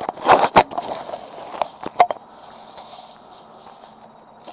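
A handful of sharp clicks and knocks of handling close to the microphone in the first two seconds, then faint steady room noise.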